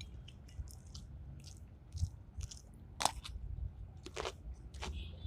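A person eating close to the microphone: biting and chewing, with irregular wet clicks and a few louder crunches, the strongest about three seconds in and again a second later.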